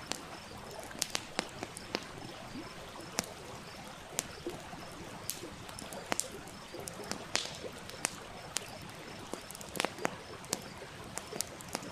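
Wood campfire crackling, with sharp pops at irregular intervals, several a second at times, over the steady flow of a small stream.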